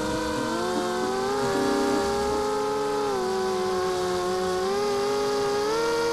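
Brushless motors and propellers of a 230 mm FPV quadcopter whining as recorded by its onboard Mobius camera, the pitch of the whine dipping about three seconds in and rising again near the end as the throttle changes.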